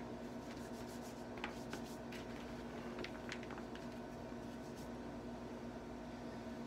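Hands working in a bucket of lifting chalk: faint rubbing and a few light ticks over a steady low hum.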